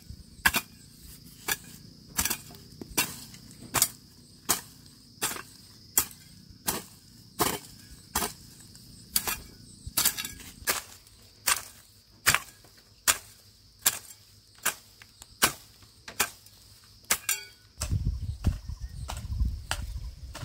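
Repeated sharp knocks at an even pace, about one every three quarters of a second, stopping a few seconds before the end; a low rumbling noise takes over in the last couple of seconds.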